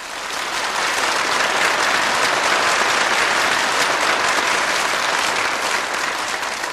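Audience applauding, building up in the first second and thinning out near the end.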